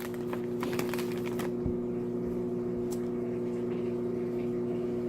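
A steady low hum, with a few light clicks and taps in the first second and a half.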